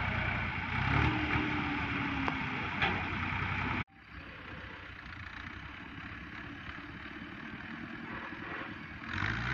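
Tractor diesel engine running steadily. About four seconds in, the sound cuts off abruptly and comes back as a quieter, steady engine sound.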